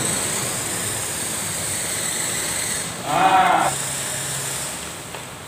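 Electric RC drift car running across a tiled floor: a steady high motor whine and tyre hiss that fades out near the end. A short voice-like call sounds about three seconds in.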